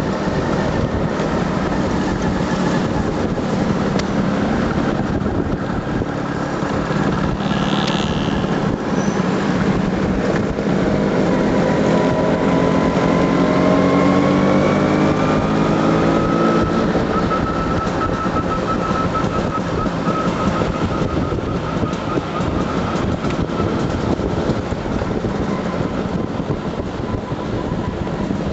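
Motor scooter engine running on the move, its pitch climbing slowly through the middle and then holding steady.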